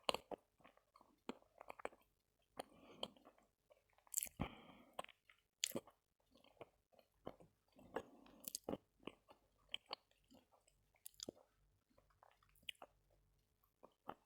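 A person biting and chewing lumps of Khrapovsky chalk close to the microphone: irregular sharp crunches with softer grinding chews in between.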